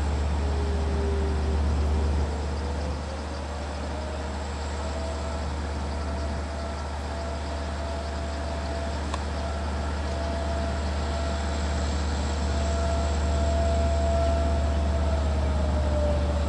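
Long Island Rail Road DE30AC diesel locomotive idling, a deep steady engine hum with a whine that rises a little early on, holds, and sinks again near the end.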